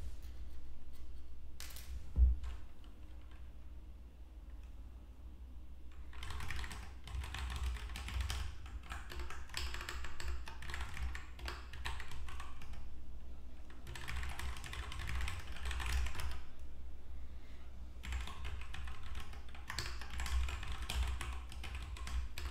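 Typing on a computer keyboard in three long bursts of rapid key clicks, over a low steady hum. A single sharp thump about two seconds in is the loudest sound.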